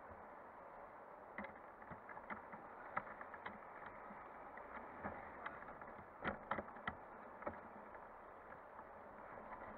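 Muffled driving noise inside an off-road vehicle's cabin on a rutted, muddy forest track: a steady low rumble with scattered sharp knocks and rattles, a cluster of the loudest about six to seven seconds in.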